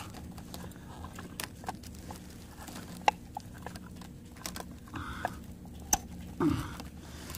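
Scattered small clicks and gritty crunches from a graphite exothermic-welding mould and its steel handle clamp being handled in gravelly soil, with a sharper click about six seconds in as the clamp handles are worked open. A faint steady hum runs underneath.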